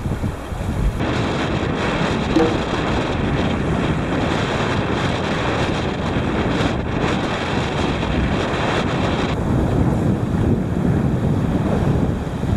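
Sea surf washing and breaking against shoreline rocks, with wind buffeting the microphone. The noise grows fuller about a second in and eases again near nine seconds.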